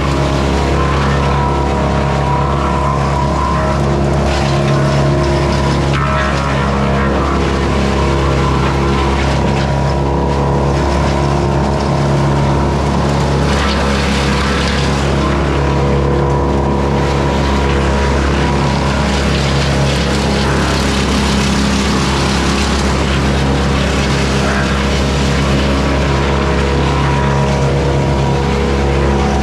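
Morbark Beever M12R wood chipper running at a steady speed while branches are fed through and chipped. Under the even engine note, the noise of the chipping swells and fades over spells of a few seconds.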